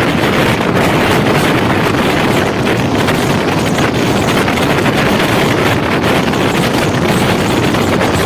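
Passenger train running at speed, heard from a microphone held out of the side of the coach: a loud, steady rush of wind on the microphone over the rumble of the coaches on the rails.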